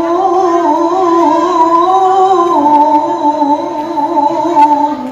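A man's voice reciting the Quran in melodic tilawah style, holding one long ornamented note with small wavering turns. The pitch steps down about halfway through, and the voice fades near the end.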